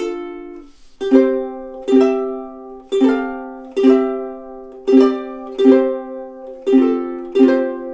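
Cort UKEBWSOP all-solid blackwood soprano ukulele: a last plucked note rings out and fades, then after a short pause chords are strummed slowly and evenly, about one strum every 0.8 seconds, changing chord about two-thirds of the way through.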